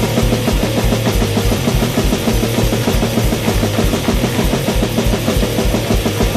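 Hardcore punk band playing: distorted electric guitar, bass and drums pounding a fast, steady beat.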